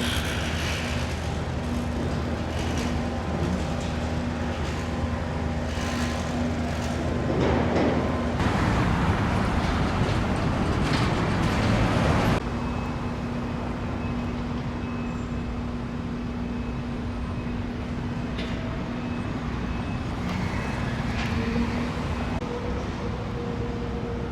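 Road traffic noise from a car being driven on city streets: a steady engine hum with tyre rumble, and a louder rush of passing traffic for about four seconds in the middle.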